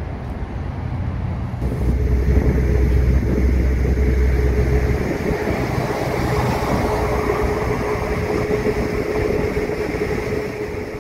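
City bus running close by in street traffic. It gets louder about two seconds in, and a steady hum sits under the rush of traffic noise.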